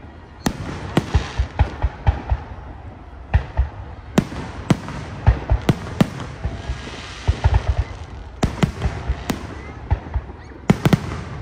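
Aerial firework shells bursting overhead: an irregular, rapid string of sharp bangs and deeper booms, with crackling between them.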